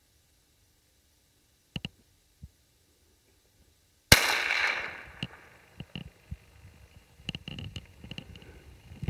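A single gunshot about four seconds in, fired at a black grouse; the report cuts in sharply and its echo dies away over about a second. A few faint clicks come before it, and scattered small knocks and clicks follow.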